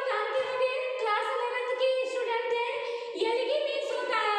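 A high-pitched voice singing, holding long steady notes with small changes in pitch.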